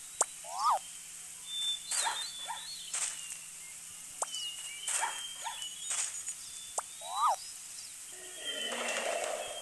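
Animal calls: many short sharp chirps and whistles, with two louder rising-and-falling calls about a second in and near the end.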